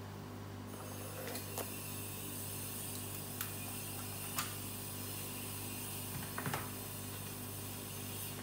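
Steady low room hum with a few light clicks and taps from a glass microscope slide and a syringe being handled and set down on a plastic clipboard, including a short cluster of taps a little after six seconds in.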